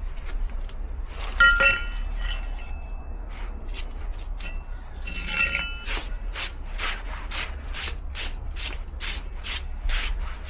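A couple of metallic clinks, then about six seconds in a steady back-and-forth rasping, about two and a half strokes a second, as something is filed or rubbed smooth during the fitting of a garage door defender.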